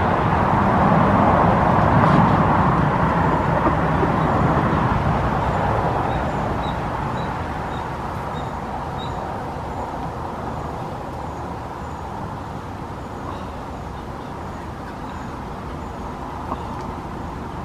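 Steady rushing outdoor background noise, loudest in the first few seconds and then easing off, with a few faint high chirps about halfway through.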